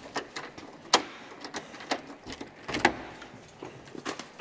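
Lock, latch and handle of a wooden door clicking and knocking as the door is unlocked and pulled open: a string of separate clicks, the sharpest about a second in.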